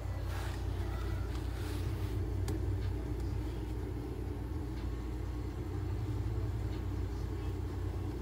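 Steady low mechanical hum of veterinary oxygen-therapy cage equipment running, with a few faint rustles in the first two seconds.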